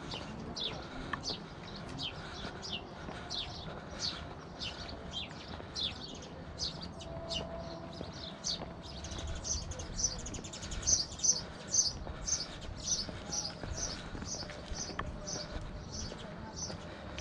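A songbird calling over and over in short, high, downward-slurred chirps, about two or three a second, louder and coming in pairs through the middle.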